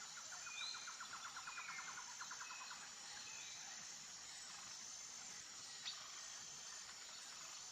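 Faint forest ambience: a steady high-pitched insect drone, a rapid trill of about ten pulses a second for the first few seconds, and a few short bird chirps.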